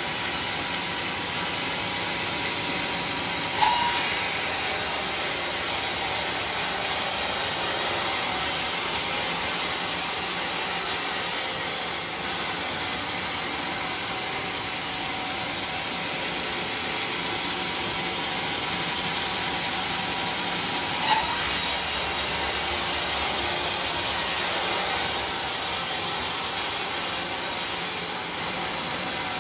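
Homemade band sawmill with a new blade, running steadily and twice sawing through teak for about seven to eight seconds each time. Each cut opens with a sharp knock and brings a louder, brighter hiss, which drops back to the plain running of the machine when the cut ends.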